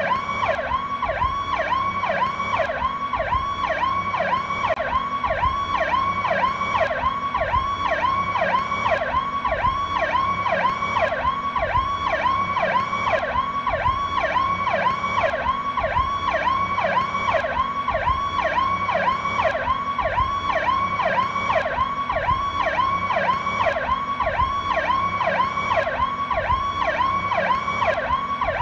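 Police car Powercall electronic siren sounding continuously. It rises and falls quickly in a fast, even cycle, a little under two sweeps a second.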